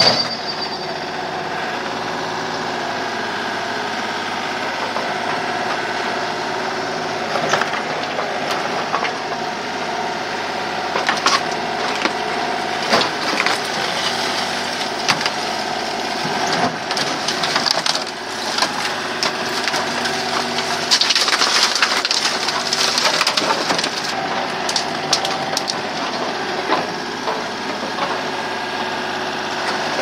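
Mini excavator (ユンボ) engine running steadily while its grab attachment tears into a wooden house wall. From about seven seconds in, wood cracks and splinters and debris crashes down, in irregular knocks and cracks.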